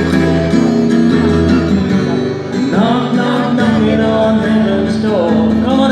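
A man singing a slow, country-style song live over guitar accompaniment, with sung phrases about three seconds in and again near the end over a steady backing.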